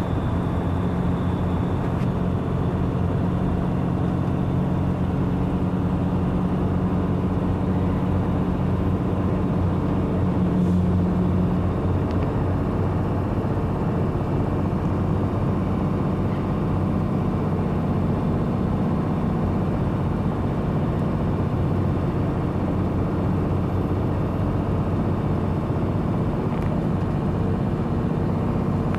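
Semi truck's diesel engine running steadily at highway speed, heard inside the cab along with road and tyre noise. The engine's note changes about eleven seconds in.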